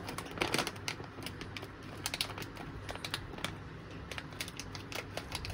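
A rapid, irregular run of light clicks and taps, like small hard objects being handled.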